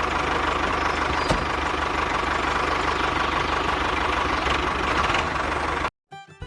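An engine running steadily at idle, cutting off suddenly near the end.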